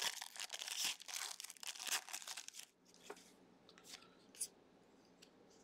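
A foil trading-card pack, a 2023 Panini Legacy Football hobby pack, is torn open and its wrapper crinkled by hand for about two and a half seconds. After that it is nearly quiet, with a few faint clicks.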